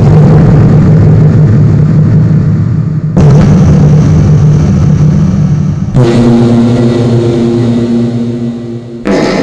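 Slowed-down fart sound effects with heavy reverb: three long, low-pitched blasts about three seconds each, one after another, with a fourth starting near the end. Each one starts abruptly and slowly fades.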